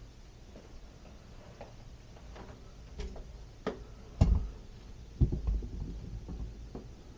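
A few light clicks, then a loud knock and a second heavy thump about a second later: a multi-paned glazed hallway door being unlatched and pushed open.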